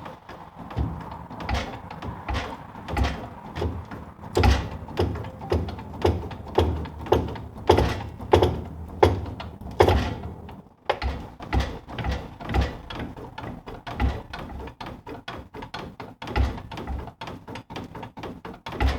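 Repeated hammer knocks, metal on metal, driving a carrier bearing onto a Land Rover Series 2 differential carrier. They come about two a second, pause briefly about eleven seconds in, then come faster and closer together.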